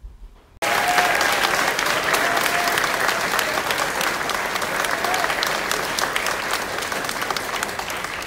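Audience applauding in a large hall, starting suddenly about half a second in and slowly dying down, with a few voices calling out over the clapping.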